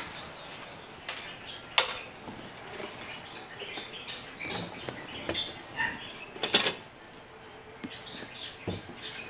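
Light clicks and clatter of kitchen items being handled, one sharper knock about six and a half seconds in, with a few faint chirps.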